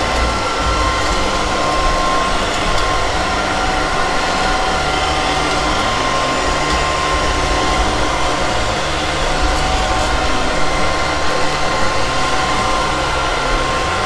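LIECTROUX B3000 PLUS robot vacuum running: a steady whirr of its suction fan and brushes with a thin high whine on top.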